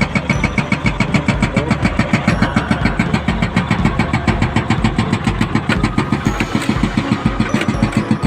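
Heavy diesel engine of mining machinery running close by, with a steady, even pulsing of about eight beats a second.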